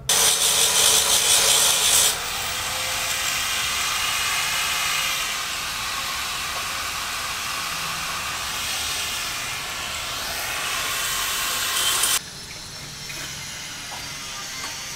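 Power tool sanding a steel canopy frame: a steady abrasive noise, loudest for the first two seconds, that cuts off abruptly about twelve seconds in.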